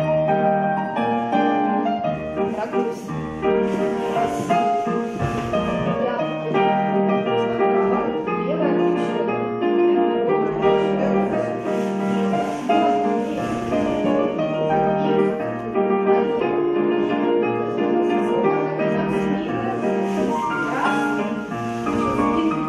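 Piano music accompanying a ballet floor exercise, starting abruptly with a chord and running on as a steady series of chords and melody.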